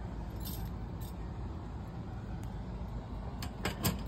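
Steady low background rumble, with a brief rustle about half a second in and a quick cluster of sharp clicks and rustles near the end.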